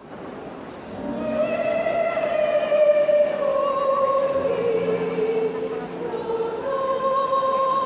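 Choir singing long held notes in harmony, swelling louder about a second in.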